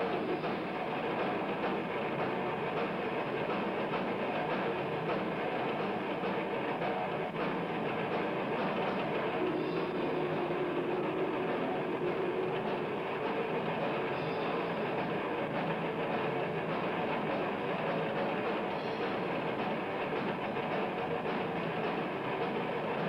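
Death metal band playing live: distorted electric guitars, bass and drums blend into one dense, steady wall of noise. The recording is lo-fi and muffled, with the highs cut off.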